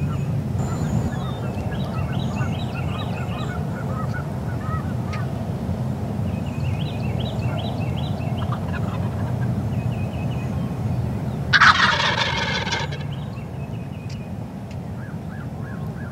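A wild turkey gobbler gobbles once, loudly, for about a second, roughly twelve seconds in. Lighter chirping bird calls come before it over a steady low hum.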